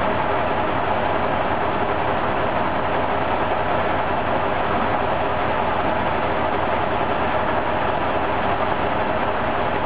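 Brossel railcar's diesel engine idling while the vehicle stands still, a steady, even mechanical noise that does not rise or fall.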